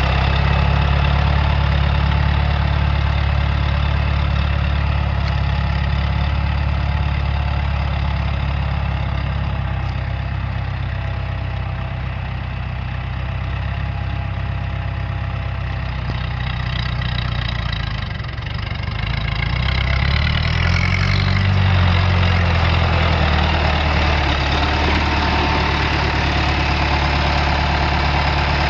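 A John Deere 2550 tractor's four-cylinder diesel engine idling steadily. About twenty seconds in, the engine note rises and falls briefly, then settles back to idle.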